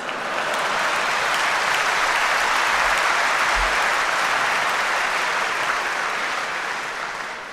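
Audience applauding a speaker's line. The applause starts at once, holds steady, and dies away near the end.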